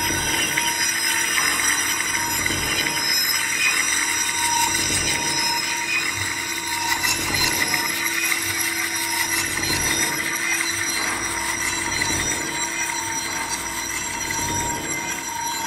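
Ambient drone music from a live sound-bath set: several steady held tones under a dense, shimmering metallic wash high up, with no beat.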